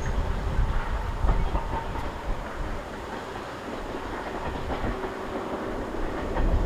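A train running on the rails, its wheels clacking over the rail joints, with a low rumble of wind on the microphone that eases in the middle.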